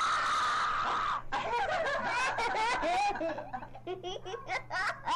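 A woman laughing hard in quick, breathy bursts, after a loud shrill burst in the first second.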